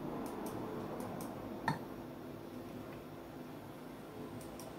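A few faint button clicks, with one sharper click about a second and a half in, over a low steady background hum: a remote's buttons being pressed to move through the TV box menus.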